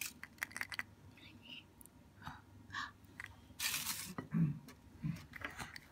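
Small clicks and handling noises from a plastic surprise-egg toy capsule turned over in the hand, with a short rustle about three and a half seconds in and soft whispered voices.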